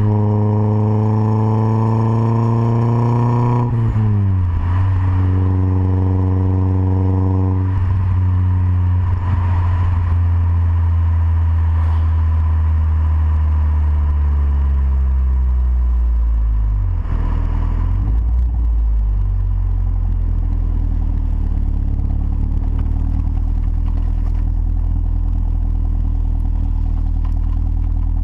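Opel Calibra Turbo's 2.0-litre turbocharged four-cylinder running through an aftermarket universal silencer while driving. The engine note drops sharply a couple of times in the first eight seconds, sinks steadily as the car slows, then settles to a steady low idle for the last ten seconds.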